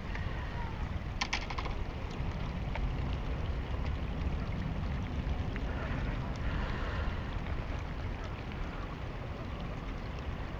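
Steady low wind rumble on the microphone. About a second in comes a quick cluster of clicks from a small sunfish flopping on the plastic deck tiles.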